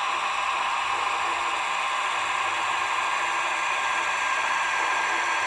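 Steady hissing whir from the Roco H0 EDK 750 model railway crane's digital sound decoder and small loudspeaker as the model rolls along the track, even throughout with no distinct creaks or clicks.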